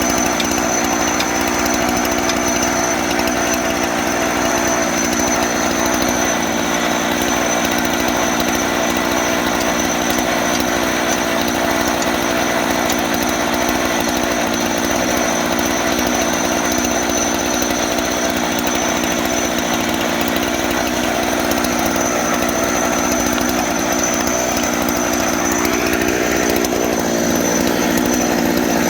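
Engine-driven sawmill running steadily through a long cut, with a brief change in pitch near the end.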